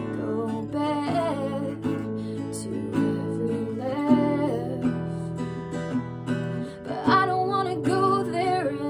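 A woman singing to her own acoustic guitar, the guitar played steadily throughout while the voice comes in short phrases with gaps between them.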